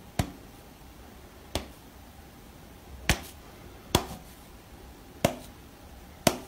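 A person's finger snaps: six sharp single snaps at an uneven pace, about one every second or so.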